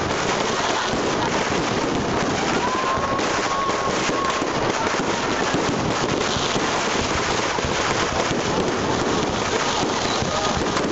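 Fireworks display: a dense, continuous crackling of many bursting shells, steady in loudness, with a faint whistle about three seconds in.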